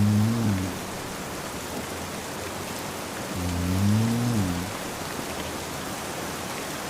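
Steady rain with a man snoring over it, one low snore about every four seconds: one trailing off right at the start and another about three and a half seconds in.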